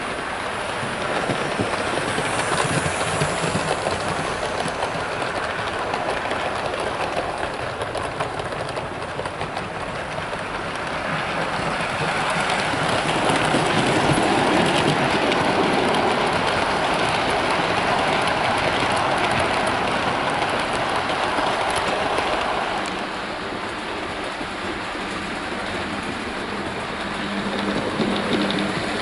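OO gauge model train, locomotive and coaches, running along layout track: a steady rumble of the motor and wheels with fine clicking over the rail joints. It grows louder as the train passes, about halfway through, then eases off.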